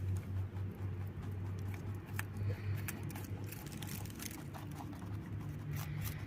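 A rabbit chewing raw vegetables: quick, irregular crunching clicks, over a steady low hum.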